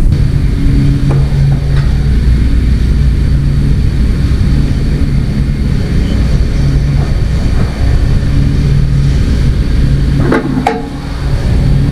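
An engine running steadily with a low hum, its pitch holding level throughout. A short clatter of clicks comes near the end.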